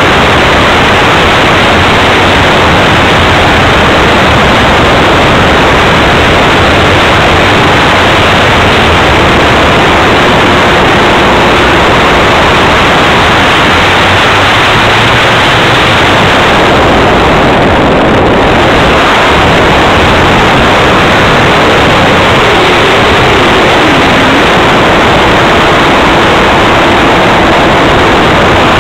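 Loud, steady noise of a radio-controlled model plane's motor and propeller in flight, mixed with wind rushing over the microphone of a camera mounted on its wing.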